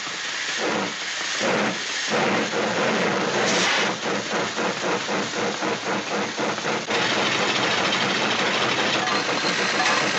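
Steam-train sound effect chugging: slow chuffs speed up to a quick, even rhythm of about four or five a second, then give way to a steady hiss about seven seconds in.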